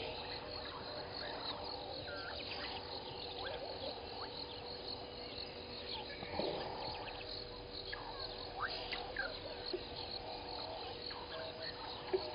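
Chorus of frogs and insects: a steady hum with many short chirps and calls scattered over it.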